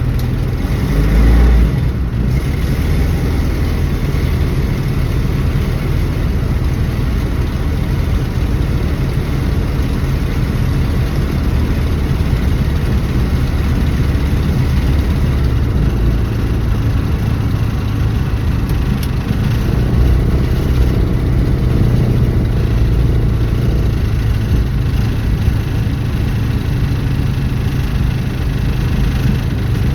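1974 Dodge Dart's engine running steadily, with a brief louder swell about a second in.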